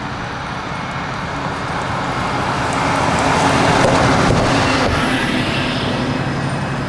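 A large passenger vehicle driving past close by, its engine hum and road noise building to a peak about four seconds in and then easing off.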